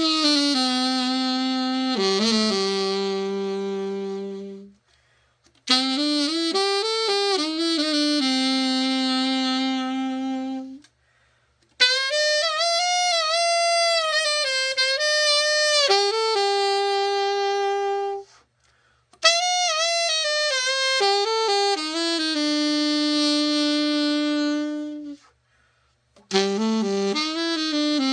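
A Yamaha YAS-275 alto saxophone, freshly overhauled and set up, played in five slow phrases of held notes, some with vibrato, with a short pause for breath between phrases.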